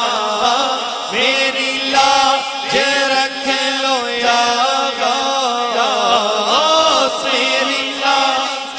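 A solo male voice sings an Urdu manqabat, a Sufi devotional praise song, into a microphone without instruments. He draws out long ornamented notes that bend up and down over a steady low drone.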